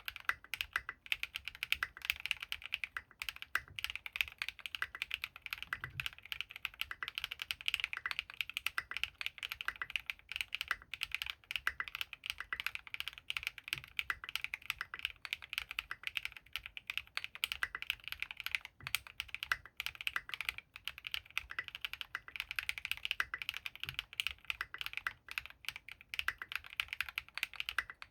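Continuous fast typing on a custom mechanical keyboard with lubed Gateron RAW switches and SA-profile keycaps on an aluminium plate, a dense stream of keystroke clacks.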